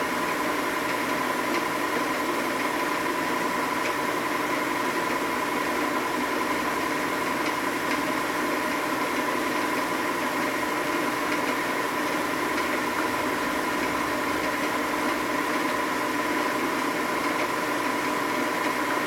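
Metalworking machine tool running steadily, a constant motor whine with a hiss underneath, as it takes a cut on a motorcycle cylinder part.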